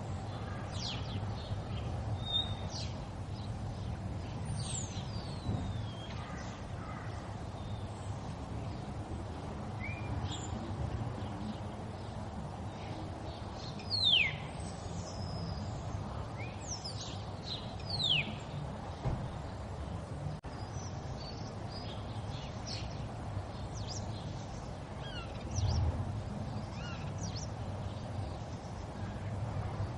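River water flowing with a steady rush, while small birds call in short downward-sliding whistles throughout, a few standing out louder around the middle.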